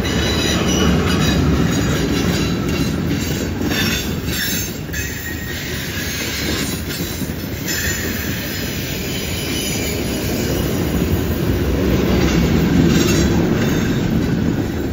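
Freight cars (covered hoppers and tank cars) rolling past on a curve: a steady heavy rumble of steel wheels on rail, with high-pitched wheel squeal coming and going as the cars take the curve.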